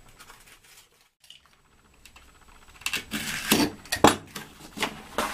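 Clicks and crackles of peel-and-stick edge strips being handled: backing paper peeled off and strips pressed down onto a plywood subfloor. The sounds are faint and sparse at first, with a near-quiet gap, then come thicker and louder from about three seconds in.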